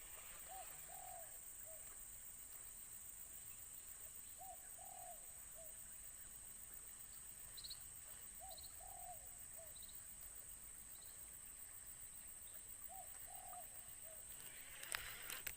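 A dove cooing. It gives a short three-note coo four times, about every four seconds, with a few faint high chirps between.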